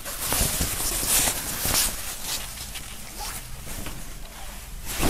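A large polyester flag being unfolded and spread out by hand, its fabric rustling, most busily in the first couple of seconds.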